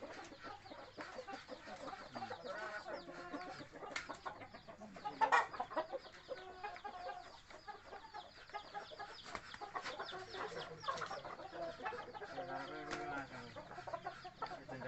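Chickens clucking, with many short calls following one another and one louder, sharper sound about five seconds in.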